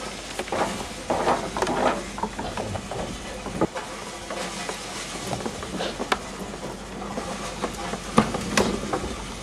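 Handling noise: rustling and irregular clicks and knocks as plastic-wrapped equipment is moved and fitted together, busiest about a second in, with a sharper knock near the end.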